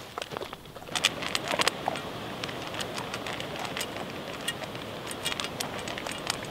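Dog eating dry kibble from a stainless steel bowl: a quick, irregular run of crunches and clicks, loudest about a second in.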